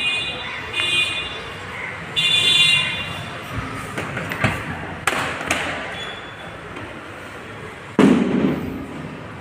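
A few short, high squeaky chirps, then a run of sharp clicks and knocks, and a sudden heavier thud about eight seconds in.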